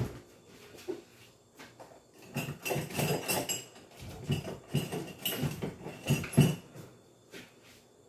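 Kitchen utensils and dishes knocking and clinking, a run of clatter starting about two seconds in, with the sharpest knock near the end, as boiled pig's feet are cleaned.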